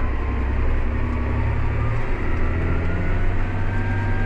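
John Deere 8300 tractor's six-cylinder diesel engine running steadily under load while pulling an implement through a field. A faint whine rises slowly over it, and the engine note changes about two seconds in.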